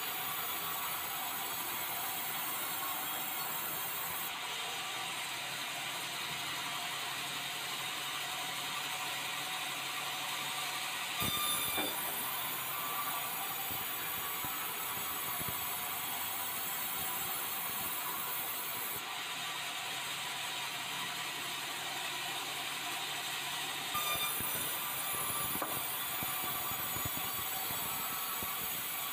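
Band sawmill running steadily and sawing a red meranti log, a continuous high mechanical whine and rasp of the blade in hardwood. Brief knocks twice, about eleven and twenty-four seconds in.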